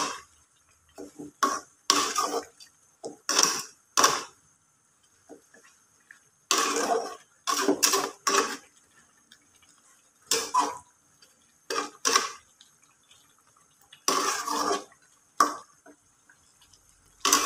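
Metal slotted spatula scraping and knocking against a metal wok while stirring chicken in a thick coconut-milk sauce: about a dozen separate, irregular strokes with short pauses between.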